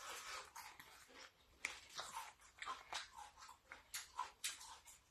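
Faint, close eating sounds: chewing with irregular short smacks and clicks.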